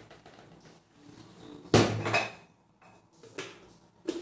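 A bowl knocking against a blender jar as cooked cassava chunks are tipped in: one loud clatter about two seconds in with a quick second hit, then a few lighter clicks near the end as the lid goes on. The blender is not running.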